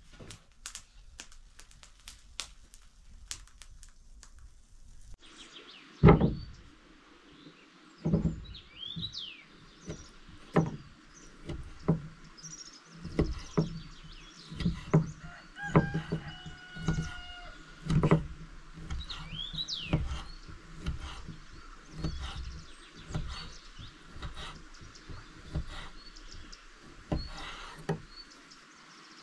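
Irregular knocks and thumps, about one or two a second, starting about five seconds in, with the first one the loudest. Birds chirp now and then in the background.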